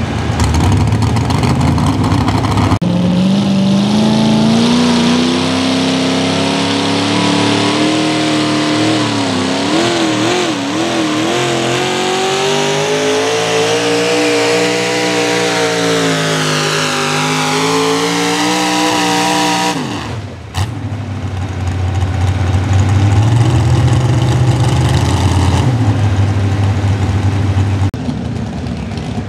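A competition pulling vehicle's engine at full power through a pull: a loud, high engine note that climbs as the run gets going, wavers briefly, holds, then drops and cuts off after about seventeen seconds. A lower engine then runs steadily.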